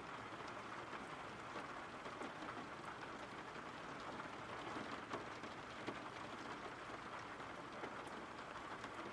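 Steady rain: a faint, even hiss with the occasional soft tick of a single drop.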